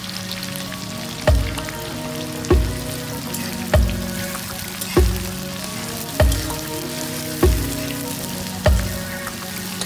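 Sliced onions sizzling in hot oil in a metal kadai as a metal spatula stirs them. Background music runs underneath, with a deep, regular thud about every second and a quarter as the loudest sound.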